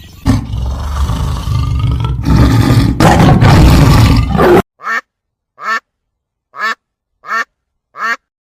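Animal sound clips: a loud, rough, noisy animal call for about four seconds that cuts off abruptly, followed by five short, identical calls repeated at an even pace, each rising in pitch.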